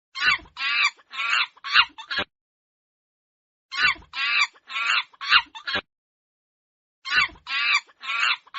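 A monkey chattering: three bouts of quick, repeated calls, five or six calls to a bout, each bout about two seconds long with short silences between.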